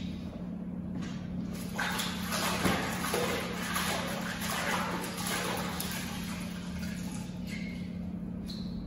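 A rough hissing, rubbing noise lasting about five seconds from a stainless-steel display counter being wiped down, over a steady low hum.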